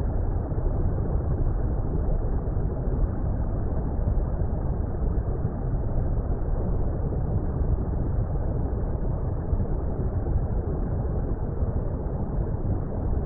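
Steady, muffled low rumble of water, like an underwater ambience, with no high-pitched sound and no separate splashes or bubbles.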